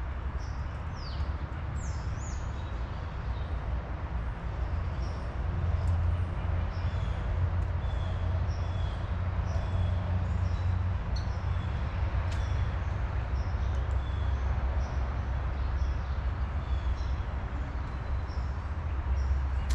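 Small birds chirping: many short, high calls scattered throughout, over a steady low rumble.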